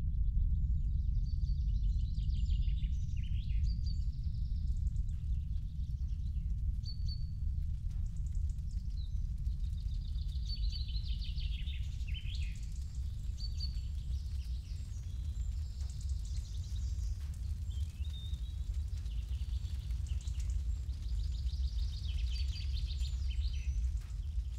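Birds chirping and singing in short, scattered phrases over a steady low rumble.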